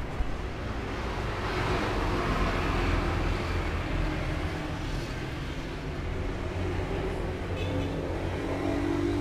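Steady rumble of passing road traffic.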